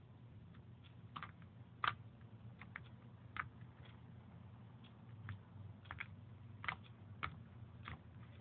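Homemade white-glue slime being kneaded and poked by hand, making small irregular clicking pops, the loudest about two seconds in.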